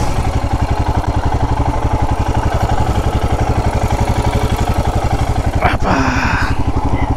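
Motorcycle engine running with a steady, rapid low beat. A brief higher-pitched sound cuts in about six seconds in.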